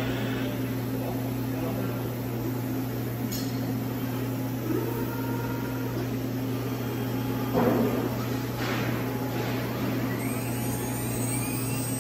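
Industrial machinery running with a steady hum, broken by a few short knocks and one brief louder burst about two-thirds through, with a faint whine rising in pitch near the end.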